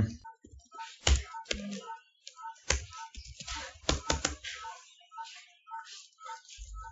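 Computer keyboard typing: an irregular run of keystroke clicks with short pauses between them.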